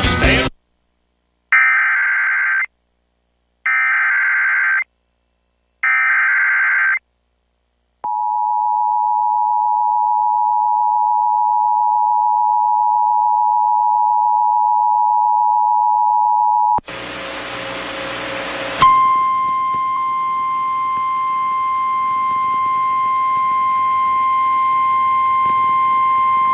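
Three short, identical bursts of Emergency Alert System SAME header data, a harsh warbling digital chirp. These are followed by the EAS two-tone attention signal held for about nine seconds. It then cuts to radio hiss, and about two seconds later a single steady NOAA Weather Radio 1050 Hz warning alarm tone begins and holds.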